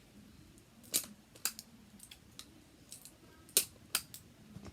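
A handful of sharp clicks and taps from small objects being handled, the loudest about a second in and about three and a half seconds in.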